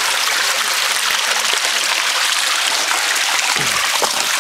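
Small stream running and splashing over rock ledges, a steady rush of water.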